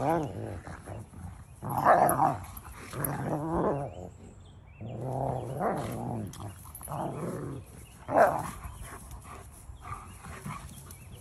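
Two dogs play-fighting, growling in repeated bursts every second or two as they wrestle.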